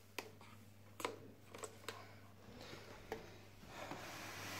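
Handling noise as a drone remote controller is packed into its case: several light plastic clicks and knocks, then a rustle that grows louder near the end.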